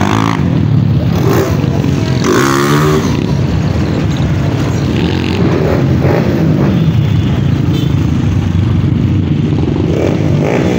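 Several motorcycle engines running in a busy street, with one bike revving briefly about two seconds in.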